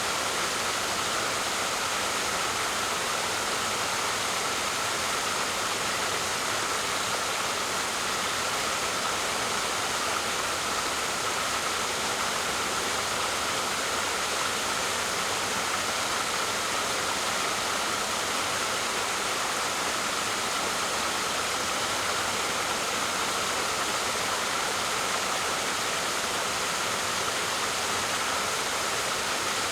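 Waterfall: a steady, unbroken rush of falling water, mostly hiss with little low rumble.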